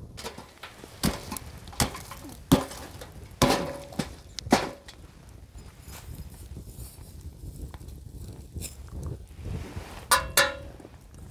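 Campfire being stoked: sharp wooden knocks and cracks, about one a second over the first five seconds, as the wood is worked and sparks fly up, with another cluster of knocks near the end.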